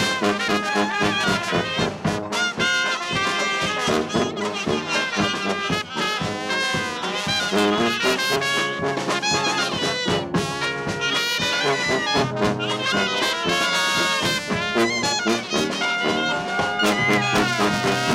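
A traditional New Orleans jazz band playing live, with a sousaphone carrying the bass line under several horns.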